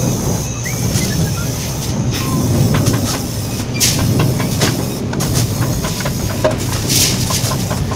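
Scattered light metallic clicks and taps from hand work on the open cylinder head of an Isuzu 4HF1 diesel engine, over a steady low rumble.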